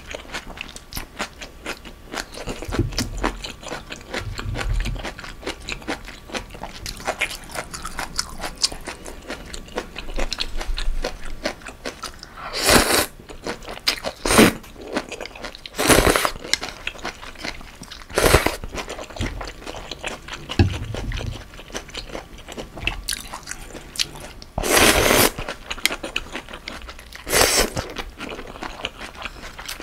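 Close-up eating sounds of a person eating pho: steady wet chewing and mouth clicks, with about six loud slurps of rice noodles and broth off a ladle in the second half.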